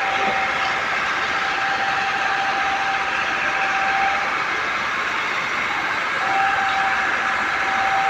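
Steady running noise of concrete batching plant machinery, with a high steady whine that stops for about two seconds in the middle and then comes back.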